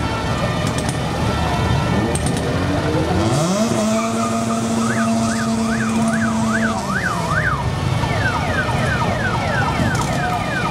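Fire engine sirens over a rumble of engines. A long steady horn-like tone comes in about three seconds in, then a fast up-and-down yelp, then repeated falling wail sweeps near the end.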